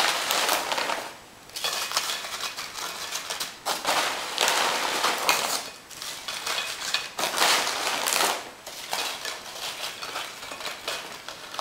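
Tortilla chips rustling and clattering as they are taken out by hand and laid around a plate, in about five crackly bursts.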